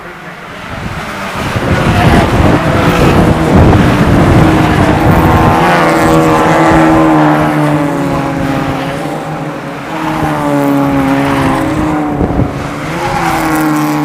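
A field of Ford Fiesta race cars passing at full throttle, many engines blending into one loud din. Then a few engine notes stand out, rising and dipping in pitch as the cars accelerate and back off.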